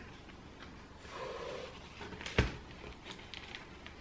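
Quiet tableware sounds while cake is eaten: faint clicks of forks on plates, and one sharp knock about two and a half seconds in.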